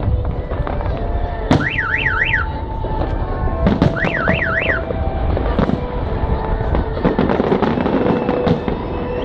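Car alarm siren sounding in fast up-and-down warbling sweeps, twice in runs of three, among the bangs and crackle of fireworks going off over a steady low rumble.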